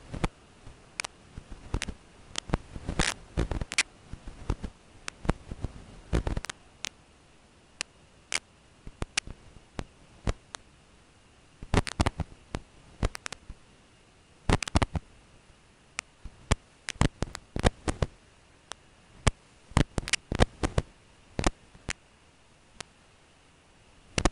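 Irregular sharp clicks and crackles, some single and some in quick clusters, over a faint steady high-pitched tone.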